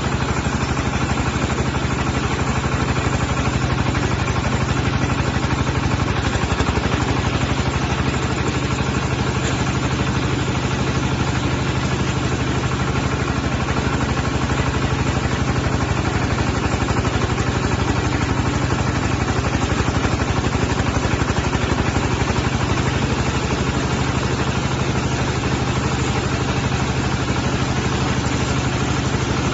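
Diesel engine of a mobile vertical band sawmill running steadily at an even speed, with a fast, even clatter.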